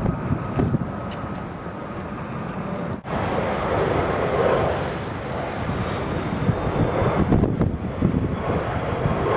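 An airplane passing overhead: a steady rushing drone that swells about four seconds in and stays strong through most of the rest.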